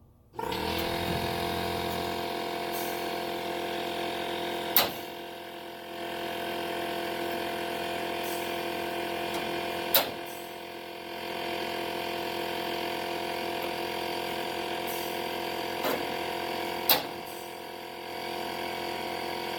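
A motor hums steadily while a rivet gun sets 3/16-inch rivets into sheet metal, snapping sharply four times, about every five seconds at first and then twice a second apart near the end.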